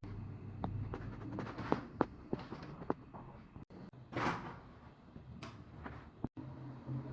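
Handling sounds from a new refrigerator and its packaging: a series of light knocks and clicks, like doors or drawers being opened and shut, with a brief rustling scrape about four seconds in.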